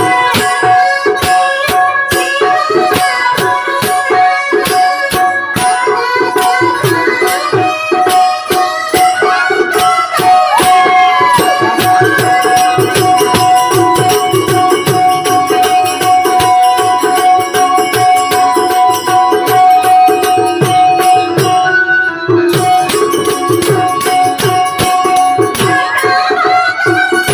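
Music with a steady held drone note and fast, regular percussion, with a melody line gliding in pitch about ten seconds in.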